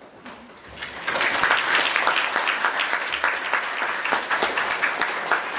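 Audience applause, building up about a second in and then going on steadily.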